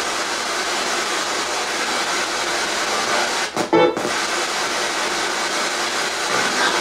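Spirit box sweeping through radio stations, giving a steady rushing static. Just past halfway the static breaks off and a short, louder snatch of pitched radio audio comes through.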